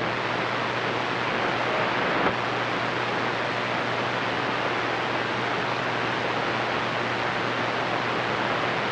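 CB radio receiver static: a steady hiss from the speaker on an open channel with no station coming through, over a low steady hum.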